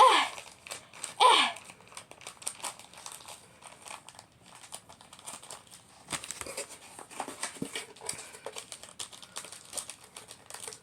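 Plastic packaging crinkling and rustling as the kit's contents are handled, with many small crackles in the second half. Near the start, two short whines that fall in pitch.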